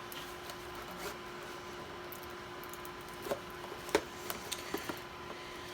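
Packaging being handled: a few small sharp clicks and taps about three to five seconds in, over a faint steady hum.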